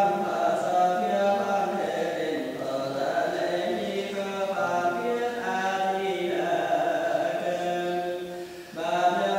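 Buddhist chanting: voices in long, slowly shifting sung tones over a steady low drone. It breaks off briefly near the end, then starts again.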